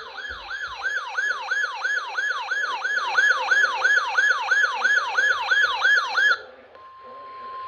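Electronic siren-type alarm: a fast, evenly repeating falling sweep, about three and a half sweeps a second, that cuts off about six seconds in. A faint steady tone follows near the end.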